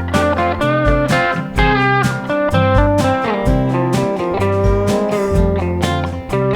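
Instrumental country blues on guitars, a 1961 Gibson J-50 acoustic and a '99 Fender Telecaster electric. Picked lead notes ring over a repeating low bass line.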